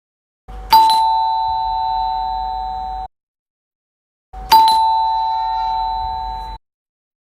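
Doorbell rung twice, each ring a sharp chime strike that holds a bright ringing tone for about two seconds and then cuts off suddenly, with silence between the two rings.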